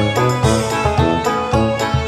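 Background music with a steady beat of plucked-string and bass notes.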